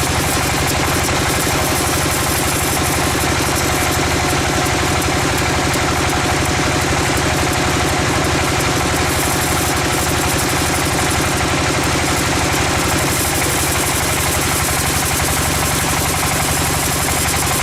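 Sawmill machinery running steadily: a motor with a fast, even pulse under a constant hiss.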